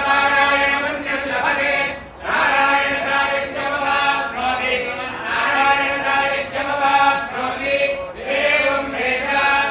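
Several voices chanting mantras in unison, held on steady pitches in phrases of a few seconds, with short breaks about 2 seconds in and about 8 seconds in.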